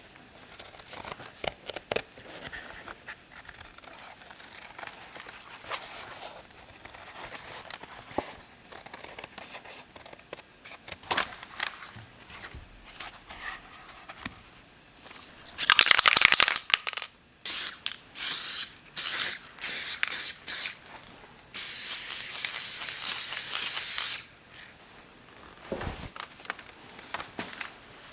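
Aerosol spray can hissing in a series of bursts: one of about a second and a half, several short quick ones, then a longer steady spray. Before that, light handling clicks and rustles of work on the saddle leather.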